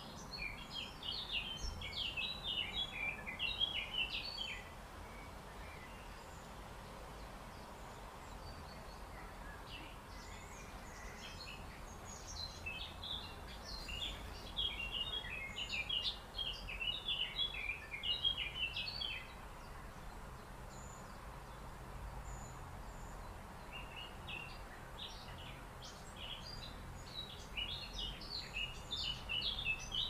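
Songbird twittering in three phrases of rapid high chirps, each a few seconds long with pauses of several seconds between, over a faint steady outdoor hiss.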